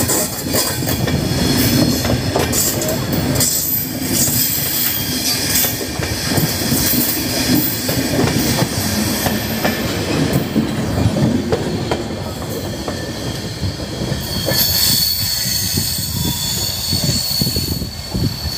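Indian Railways passenger coaches rushing past close by: wheels clattering over the rail joints with metallic squealing. The noise thins after the last coach goes by, leaving a thin high whine near the end.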